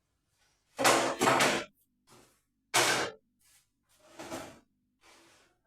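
A series of short knocks and scrapes from wooden parts being handled, the loudest a close pair about a second in, then single ones at roughly one-second intervals, fading toward the end.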